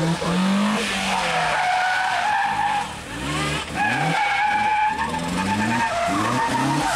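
Car engine revving up and down hard while its tyres squeal in long stretches, three or four times, as the car is flung through tight autotest turns.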